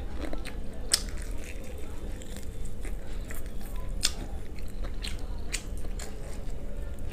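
Close-up eating of crispy fried chicken: chewing, with sharp crunches and crackles of the breaded coating as it is bitten and torn apart by hand. The loudest crunches come about a second in and about four seconds in.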